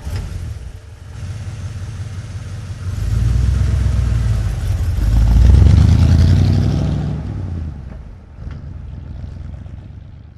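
Old truck engine running just after starting, revved up about three seconds in and hardest around six seconds, then easing back to a lower, rough idle.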